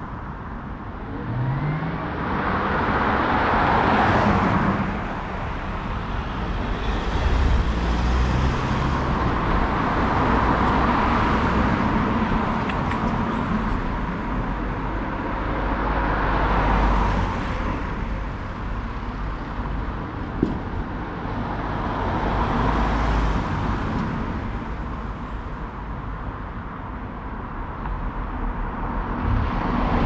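Road traffic: cars passing one after another, their tyre and engine noise swelling and fading every few seconds over a steady low rumble.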